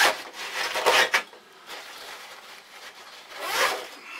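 Zips on a fabric backpack being drawn and the pack's fabric rubbing as hands open it and reach inside: a few short rasping strokes, near the start, about a second in and again near the end.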